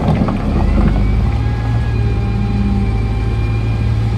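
SDLG 936 wheel loader's diesel engine running hard under load as the hydraulics lift and curl the bucket, with a faint high whine over it. A few sharp clatters near the start.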